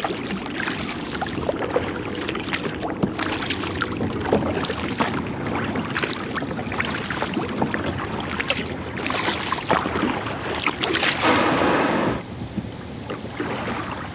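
Kayak paddle strokes and water splashing and lapping against the hull, with wind on the microphone; about eleven seconds in, a loud grinding rush for about a second as the hull runs up onto a sand beach.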